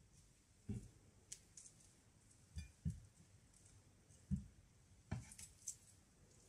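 Faint, soft knocks with a few light clicks, spaced irregularly: sushi rolls being set down one by one on a plate.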